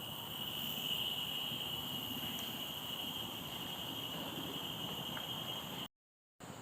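Steady chorus of crickets: an even, high-pitched drone that breaks off for about half a second near the end.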